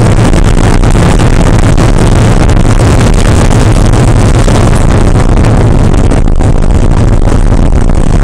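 Porsche 968's 3.0-litre inline-four running hard under racing load, loud and steady, with wind and road noise.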